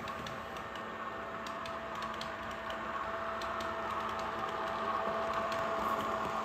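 HO-scale model train running along the track: a steady electric-motor whine with light irregular clicks of wheels over rail joints, growing louder towards the end.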